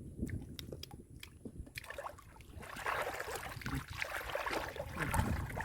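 Water splashing and sloshing in shallow muddy water, with a few sharp clicks at first, then busier, uneven splashing from about halfway in.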